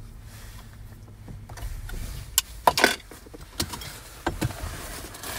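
Car seatbelt being unbuckled and let slide back: a quick run of sharp clicks and rattles about halfway through, with a few more clicks after, over a low hum in the first couple of seconds.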